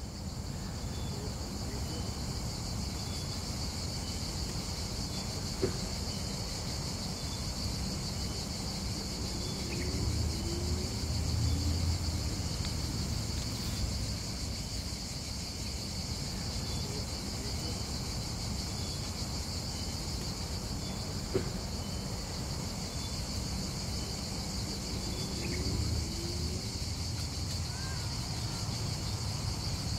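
Outdoor garden ambience: a steady high drone of insects over a low, even rumble, with a few short bird chirps and two sharp clicks, one about a fifth of the way in and one about two-thirds through.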